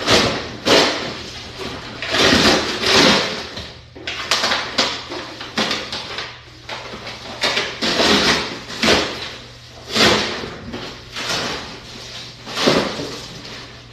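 A series of about ten short scraping and rustling handling noises, a second or so apart, over a steady low hum.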